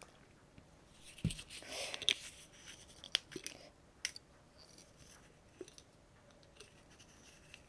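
Quiet handling of a small glass oil bottle as its cap is fiddled with and closed: a few faint clicks and light rustles, and a soft low thump about a second in.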